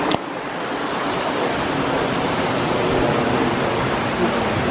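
Steady rushing of wind blowing across a phone microphone, with a sharp click right at the start.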